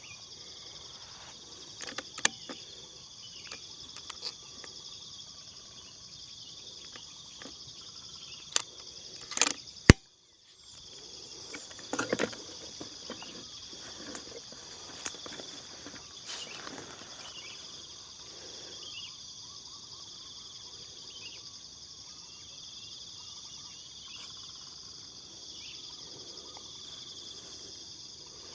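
Steady, high-pitched chorus of insects (crickets or cicadas) droning throughout, with scattered faint clicks. About ten seconds in comes a sharp, loud crack, the loudest sound, followed by a brief gap of total silence.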